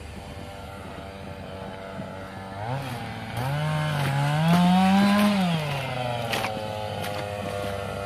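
A small petrol engine running at a low steady hum, then revving up about three seconds in, held high for a couple of seconds, and dropping back toward idle.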